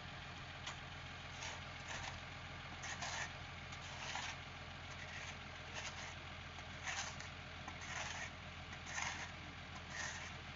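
A truck engine running steadily at idle, with short scraping sounds coming about once a second.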